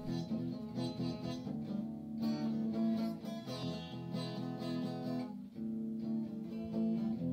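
Background music: an acoustic guitar playing.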